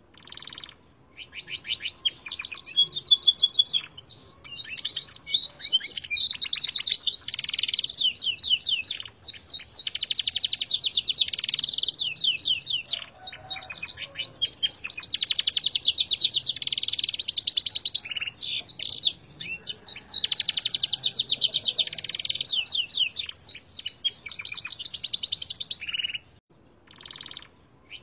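A Gloster canary tutored on red siskin song sings a long, almost unbroken song of rapid trills and fast runs of repeated chirps. There are brief breaks about a second in and near the end.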